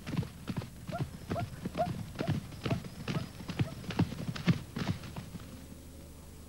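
Zebras and a wildebeest calf galloping over grass: regular hoofbeats about two a second, with short calls on several of the beats. The hoofbeats fade away shortly before the end.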